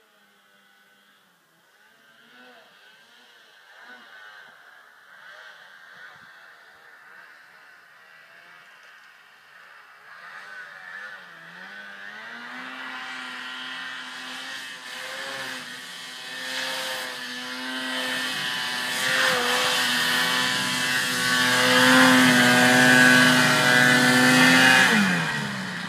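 Polaris RMK two-stroke snowmobile climbing a powder slope toward the listener. The engine grows from faint to loud as it nears and revs up sharply about halfway through. It holds high revs, then drops off near the end as the throttle is let go.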